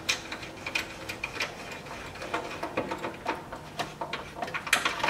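Hand ratchet clicking steadily, about three clicks a second, while a Torx bolt is backed out. A sharper metal clink comes near the end.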